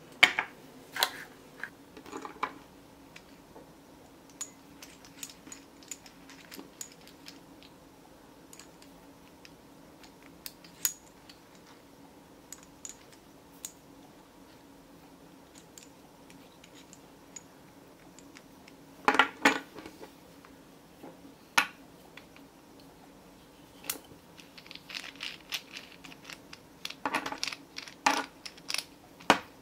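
Metal parts of a camera articulating friction arm and its crab-style super clamp clicking and clinking as they are handled and fitted together. Scattered sharp clicks, with a burst at the start, another about two-thirds through, and a cluster near the end.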